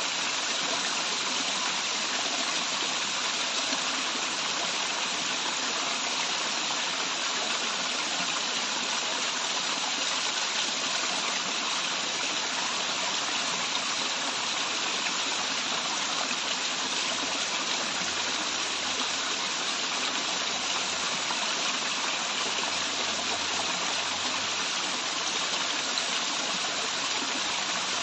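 Waterfall water pouring and splashing in a steady, unbroken rush.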